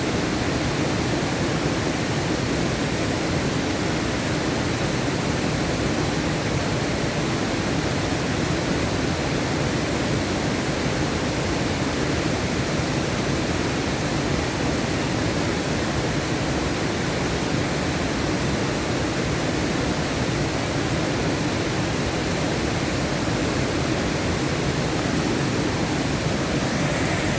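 Alibek waterfall: water falling steadily, an even rush of noise that does not change.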